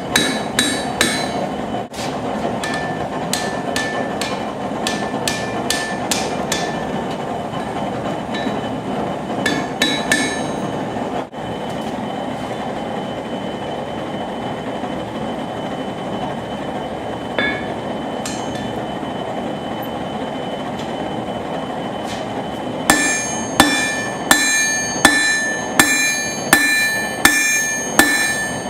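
Hammer blows ringing on a steel anvil over the steady roar of a propane forge. Scattered lighter strikes come in the first ten seconds, then a steady run of blows about two a second near the end.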